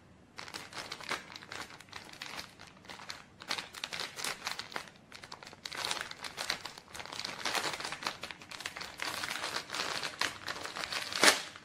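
Thin clear plastic packaging bag crinkling and rustling as it is handled and worked open, with one sharp, louder crackle near the end.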